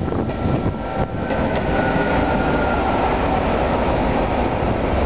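Vossloh diesel locomotive passing close by, its engine and wheels running along the track, getting louder about a second in as it draws level, with a faint high whine above the noise.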